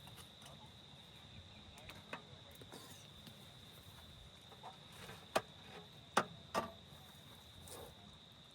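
A cricket's steady high trill, with a few sharp clicks and knocks over it, the loudest three coming past the middle.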